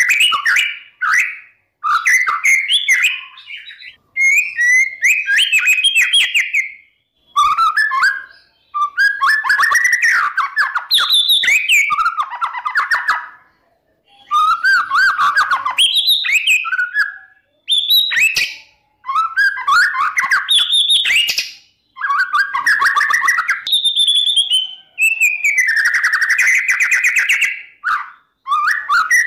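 Male white-rumped shama (murai batu) singing loudly: a long run of varied phrases of rapid trills, whistles and quick rattling notes, each a second or two long with short pauses between. It is the insistent, fired-up kind of song used to provoke rival shamas into answering.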